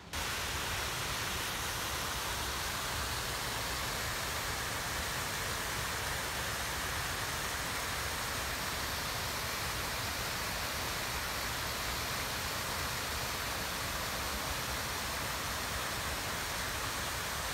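Waterfall spilling over a low stone dam: a steady, even rush of falling water that cuts in suddenly.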